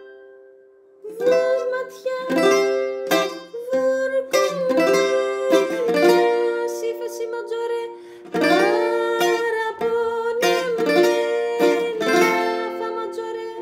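Greek bouzouki playing a song melody in quick single plucked notes. It starts about a second in.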